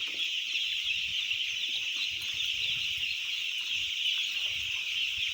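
A large flock of chicks in a brooder peeping continuously, a dense chorus of many overlapping high-pitched peeps.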